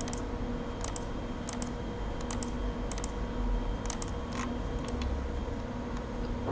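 Scattered clicks from a computer keyboard and mouse, a few at a time with short pauses between them, over a steady low electrical hum.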